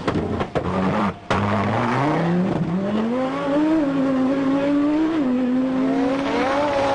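Audi Sport Quattro S1 rally car's turbocharged five-cylinder engine: sharp cracks as it cuts in and out in the first second, then accelerating hard with its note climbing in pitch. About five seconds in there is an upshift, a short drop in pitch, and the engine revs up again.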